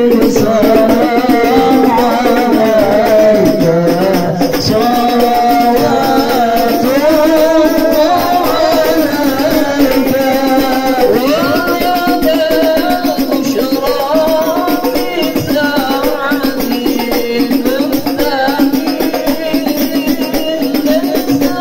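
Sholawat, devotional Arabic praise of the Prophet, sung by a man through a microphone and loudspeakers to a steady percussion accompaniment. The melody is held and bending, with no breaks.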